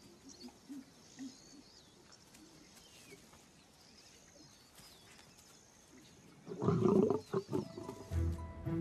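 An adult male lion gives one short, loud snarling growl about six and a half seconds in, a warning to the cubs crowding around him. Faint high chirps come before it.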